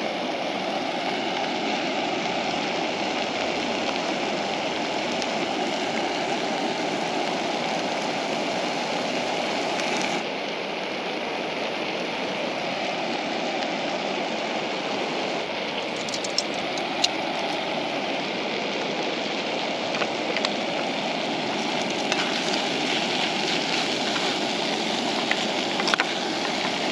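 Chicken pieces sizzling in a frying pan, a steady hiss, with onion added to the pan. A few light clicks of metal tongs against the pan in the second half.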